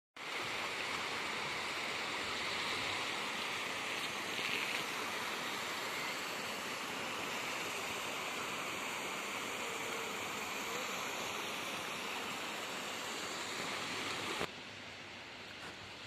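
Black Sea surf washing onto a rocky shore and sandy beach, a steady hiss of small waves. Near the end it drops abruptly to a quieter hiss.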